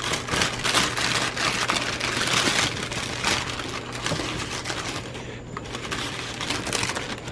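Paper takeout bags crinkling and rustling as they are unfolded and torn open by hand, busiest in the first five seconds and quieter after.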